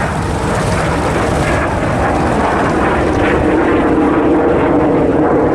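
A piston-engined warbird flying a display pass, its propeller engine growing steadily louder as it approaches.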